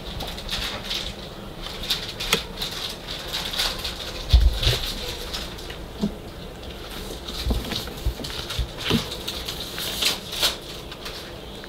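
Puppy claws scrabbling and tapping on a hard plastic toddler slide: a scatter of light clicks and scuffs, with two dull thumps about four and a half and seven and a half seconds in.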